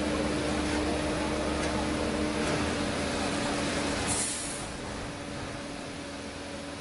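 Heavy rock-laden trucks running with a steady engine drone. About four seconds in there is a short hiss, and after it the sound drops a little.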